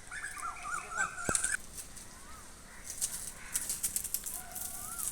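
Bird calling in the garden: a wavering, warbled call for about a second and a half, a short rising-and-falling note, then another call near the end, over scattered dry crackling and rustling.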